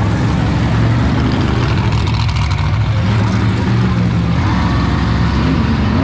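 Monster truck engines running loud and deep as the trucks drive across a grass arena, the engine note rising a little a few times as the throttle is opened.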